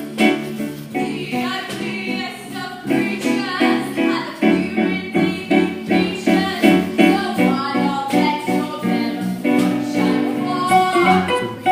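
A song from a stage musical: voices singing over a plucked-string accompaniment with a steady beat.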